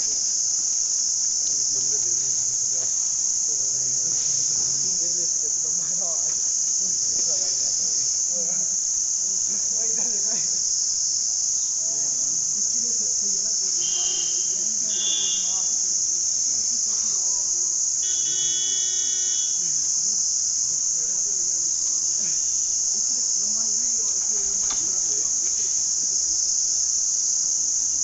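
Steady, high-pitched chorus of insects buzzing without a break at an even level. Beneath it, faint distant sounds and a couple of short tones around the middle.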